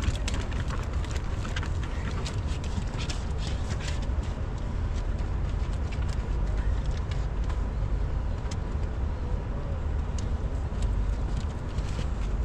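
Steady low rumble of wind on the camera microphone. Over it come scattered light clicks and rubbing from a wet microfibre wash mitt scrubbing a soapy fibreglass hull, busiest in the first few seconds.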